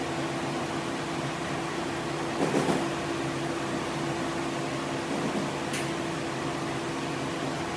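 Workshop ventilation running: a steady hum over a hiss, with a brief knock about two and a half seconds in.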